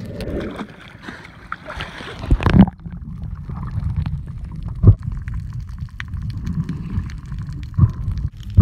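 Muffled gurgling and low rumble of water recorded by a submerged camera, with three dull thumps.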